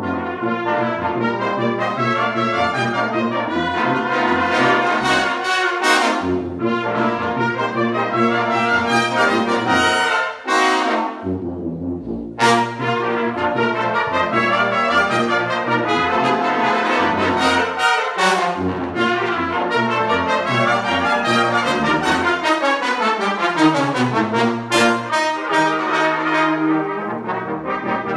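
Large youth brass ensemble of trumpets, trombones, horns, euphoniums and tubas playing a piece together under a conductor. The full band plays throughout, with a brief break about ten seconds in and a falling run of notes later on.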